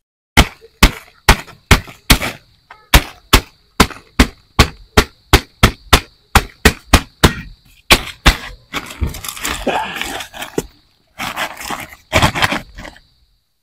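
A soil-filled plastic sack-pot being knocked over and over, about two to three sharp thumps a second, to loosen the soil and the turmeric rhizomes packed inside it. From about eight seconds in, the knocks give way to rustling plastic and scraping soil as the sack is tipped out.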